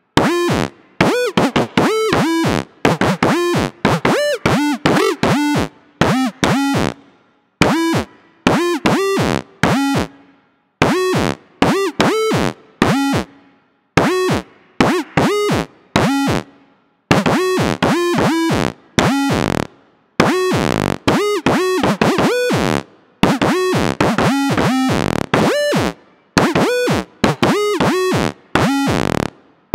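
Spectrasonics Omnisphere 'Bendy Boys' preset from the Synth Mono bank, a monophonic synth lead played on its own. It plays short notes in quick phrases with brief gaps, each note bending up and back down in pitch.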